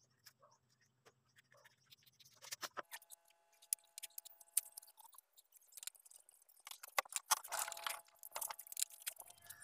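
Scissors snipping through truck inner-tube rubber: a run of faint crunching cuts and clicks starting about two seconds in.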